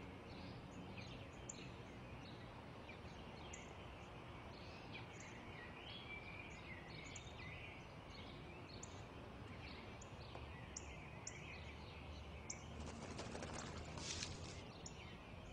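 Soft chirping of small birds in a leafy garden, in many short calls throughout. About 13 seconds in comes a brief rustle of newspaper pages.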